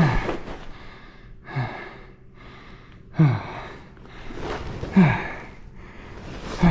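A man's heavy, voiced breathing: a gasp-like exhale that falls in pitch comes about every one and a half seconds, with quieter breathing between, as when someone is out of breath from exertion.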